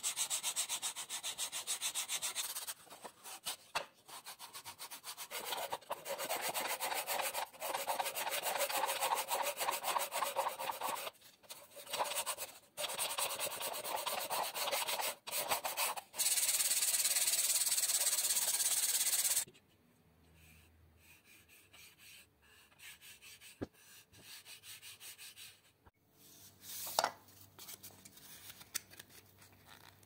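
Sandpaper rubbed by hand along the edges of a small wooden box: rapid back-and-forth scratchy strokes in bouts with short pauses, stopping about two-thirds of the way in. After that there are only a few faint clicks and a light tap.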